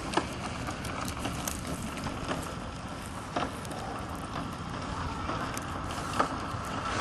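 Wind buffeting the microphone: a steady rumbling rush, with a few sharp clicks scattered through it.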